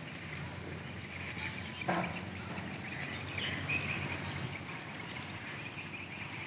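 Steady low hum of a boat engine, with chirping bird calls over it in the middle and one sharp knock about two seconds in.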